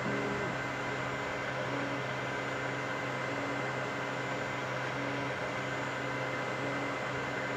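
Desktop 3D printers running mid-print: a steady fan whir and hum, with the stepper motors giving short, brief tones that change pitch as the print head moves.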